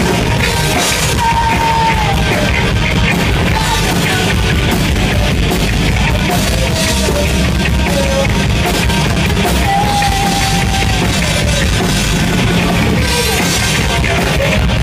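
Live rock band playing loud, with electric guitars, bass and drum kit, and a high line sliding down in pitch now and then over the top.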